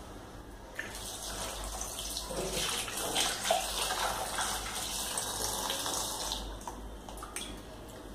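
Water running from a tap, as vegetables are washed under it. The flow picks up about a second in and tapers off near the end.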